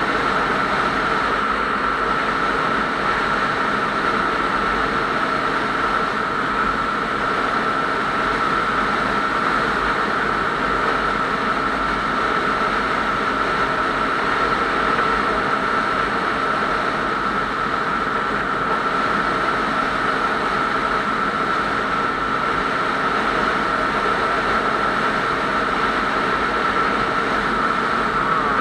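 Steady engine and road noise of a vehicle cruising at highway speed, with a steady high-pitched whine running over it.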